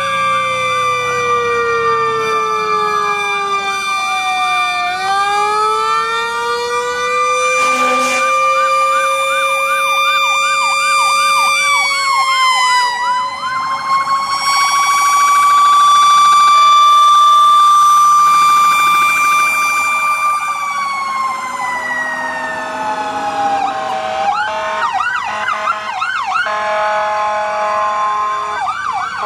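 Several fire apparatus sirens sounding together as the units pull away, slow rising and falling wails overlapping. Fast yelp patterns come in twice, briefly around the middle and again near the end, and the sirens are loudest about halfway through.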